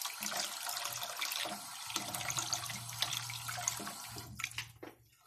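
Bathroom tap running, water splashing over a plastic scale model aircraft as it is rinsed after paint stripping; the water stops near the end.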